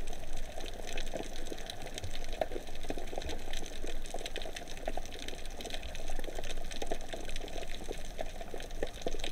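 Underwater ambience: a steady crackle of many small scattered clicks over a faint hiss.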